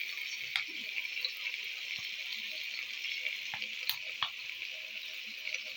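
Chopped vegetables frying in oil in a pan, a steady sizzle, with a few sharp clicks.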